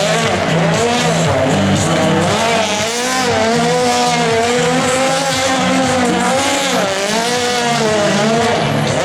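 World Rally Car engine revving up and down, with tyres squealing in long wavering tones as the car drifts on tarmac.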